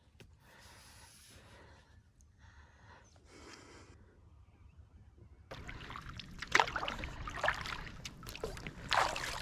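Kayak paddle strokes in calm water, faint at first. About halfway through they become louder, with splashes and drips at roughly one stroke a second.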